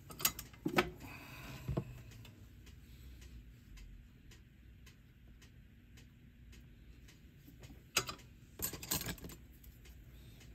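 Faint, evenly spaced ticking, with a few sharp clicks and short rattles of small tools being handled on a repair bench during soldering: a cluster in the first two seconds and another around eight to nine seconds in.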